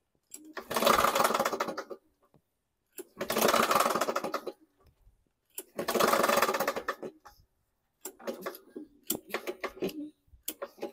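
A Toro Recycler walk-behind mower engine being pull-started by its recoil cord: three long pulls of about a second and a half each, the engine cranking over with a rapid clatter and not firing, then shorter, choppier cranking near the end. The rattling comes from inside the engine, which the owner takes as the sign that the engine is shot.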